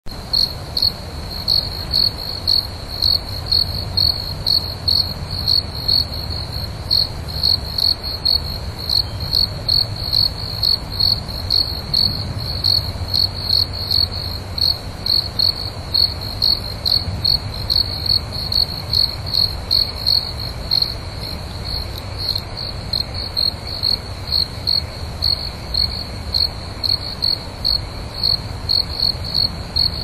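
Cricket chirping steadily on one high pitch, about two chirps a second in an even rhythm, over a low background hum.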